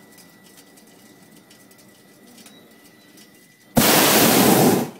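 Hot air balloon's propane burner firing in a single blast of about a second, a loud rushing hiss that starts and stops abruptly nearly four seconds in.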